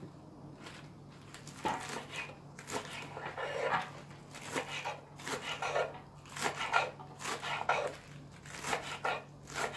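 Kitchen knife chopping crisp lettuce on a bamboo cutting board: repeated crunchy cuts, about one or two a second, starting a little way in.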